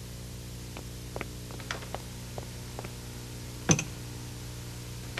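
Steady low electrical hum at several even pitches, with a few faint ticks and one louder short knock a little over three and a half seconds in.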